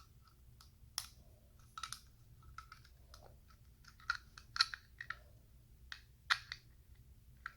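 LEGO Technic parts clicking and knocking together as pieces are pulled off and pressed into place, in irregular sharp clicks, the loudest bunched together past the middle.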